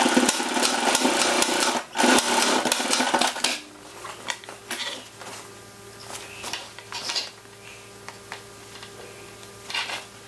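Industrial lockstitch sewing machine running in short runs, stitching elastic in with a small stitch length and back-tacking, with a brief break near two seconds. It stops after about three and a half seconds, leaving a steady low hum with small clicks and rustles as the fabric is handled.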